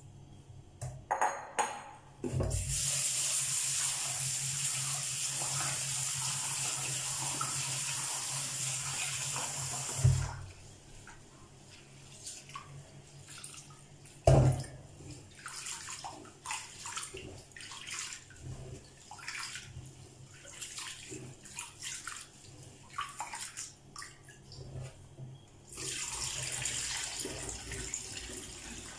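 Kitchen tap running into a metal pot of glutinous rice at a stainless steel sink, then hands swishing and rubbing the rice in the water, with one sharp knock about halfway. The tap runs again near the end.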